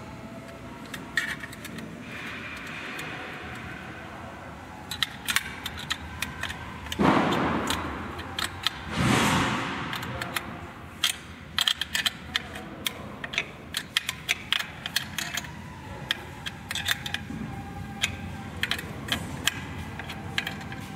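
Small metal parts clicking and clinking as they are handled and fitted by hand on a bag sealing machine, over a steady machine-room hum. Two short bursts of rushing noise come about seven and nine seconds in.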